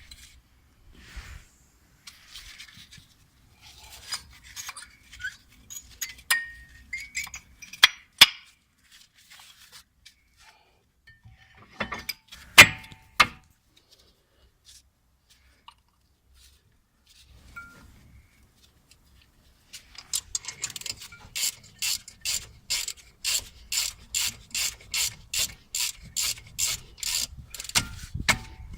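Hand tools clinking and knocking on metal brake parts. Then, from about two-thirds of the way in, a ratchet wrench clicks in a steady rhythm of about two to three strokes a second as a bolt is turned.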